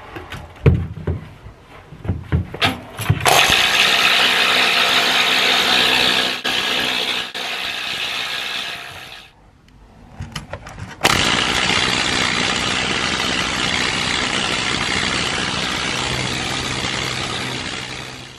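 Electric needle gun hammering rust off the steel hull plating of a sailboat. After a few knocks, the gun runs in a steady, rapid clatter for about six seconds, stops briefly, then runs again for about seven seconds.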